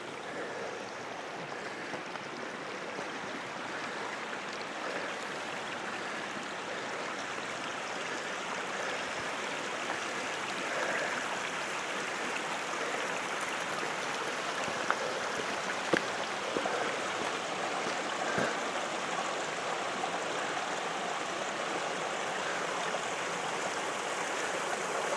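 Steady rushing of running water, as from a hill stream, with a few short clicks around the middle.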